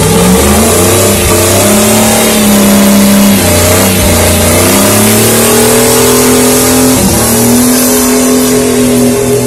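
Full-size van's engine held at high revs in a burnout, its rear tyres spinning on the asphalt in a dense hiss and screech. The revs sag briefly about three and a half seconds in and again near seven seconds, then climb back.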